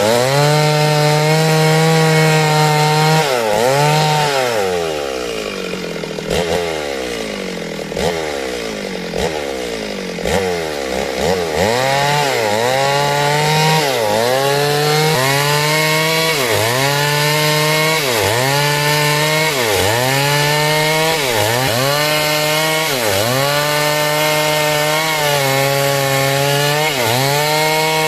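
Two-stroke chainsaw ripping lengthwise through timber at high revs. A few seconds in, it eases off and the revs fall and climb several times. It then cuts again, its pitch dipping briefly and recovering about every second and a half as the chain loads up in the wood.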